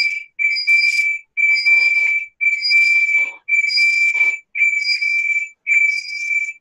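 Audio feedback squeal: a loud, high whistling tone that pulses on and off about once a second, from sound in the call looping back from speaker into microphone.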